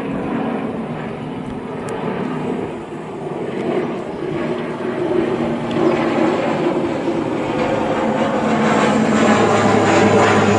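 ATR 72 twin-turboprop airliner flying low overhead at go-around power, its engines and propellers running steadily and growing louder toward the end as it comes closer.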